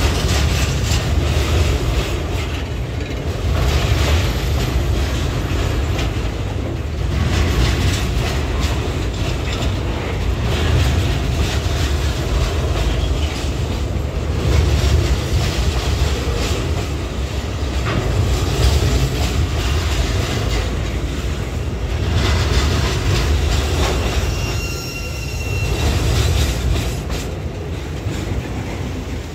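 Loaded freight train's tank cars rolling past close by, their wheels clattering over the rail joints, with a brief high wheel squeal near the end.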